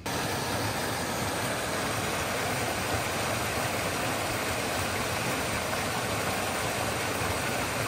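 Clear forest stream rushing over a small rocky cascade: a steady, even rush of water.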